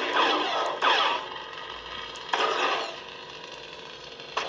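Kylo Ren lightsaber sound font playing from a Proffieboard saber's speaker: a gritty, buzzing blade hum that swells loud at the start and again about two seconds in, with another loud stretch near the end as the blade begins to retract.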